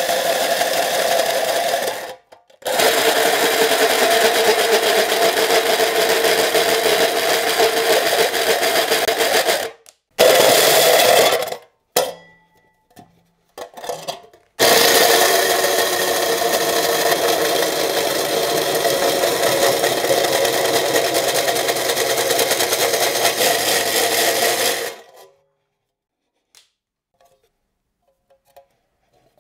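Cordless drill spinning a hole saw through the thin metal wall of a paint tin, running in long stretches with brief stops about two, ten and twelve seconds in. It cuts off about twenty-five seconds in once the hole is cut through.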